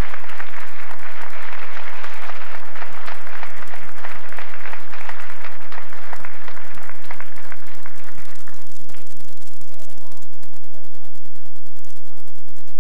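Audience applauding in a crowd of many hands, which dies away about eight and a half seconds in.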